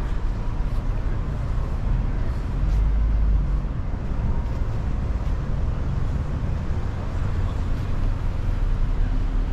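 Low, steady rumble of city traffic on a downtown boulevard, swelling briefly about three seconds in.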